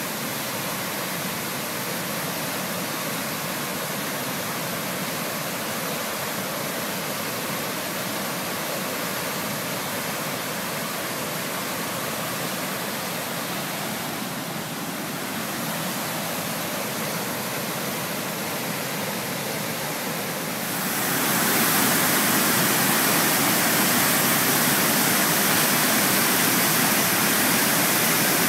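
Athabasca Falls, a large waterfall on the Athabasca River, with a steady rush of falling white water. It gets louder and brighter about three-quarters of the way through.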